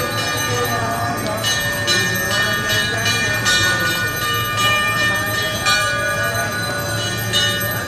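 Temple bells ringing continuously for the aarti. A dense, sustained metallic ringing is renewed by fresh clangs about once a second, over a steady low hum.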